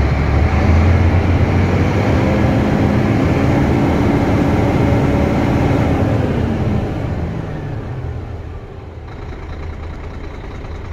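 2002 Scania P114 380 hp truck's 11-litre inline-six diesel being revved. The engine climbs steadily to about 2,000 rpm over the first few seconds, holds, then drops back to idle about seven to eight seconds in.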